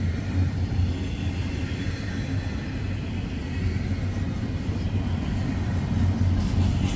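Norfolk Southern freight train cars rolling past: a steady low rumble of steel wheels on rail. A run of sharp clicks begins near the end.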